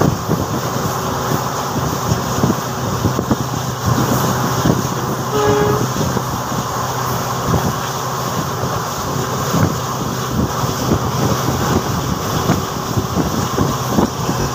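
A passenger train running at speed, heard from a coach: steady rolling and wind noise with irregular clacks of the wheels over the rails. About five and a half seconds in, the diesel locomotive's horn gives one short blast.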